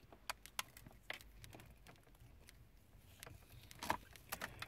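Faint handling sounds of a car's wiring harness and plastic connectors: scattered light clicks and ticks, with a louder cluster of them near the end.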